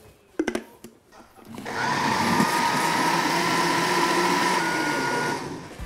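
A brief knock about half a second in, then a countertop blender starts about a second and a half in, puréeing toast and water at full speed with a steady whining motor, and stops shortly before the end.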